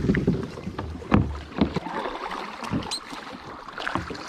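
Kayak paddle strokes dipping and splashing in river water, a string of irregular splashes and knocks, the loudest about a second in.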